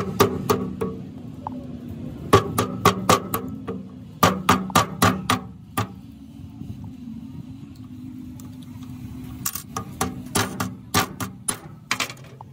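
Hammer striking a steel punch held against the piston of a Hitachi excavator boom hydraulic cylinder: runs of quick, sharp metal taps, about four bursts of five to ten blows each, over a steady low hum.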